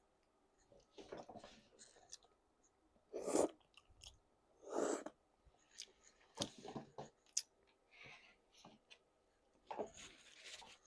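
A person chewing and munching food, in irregular short bursts of mouth noise a second or two apart.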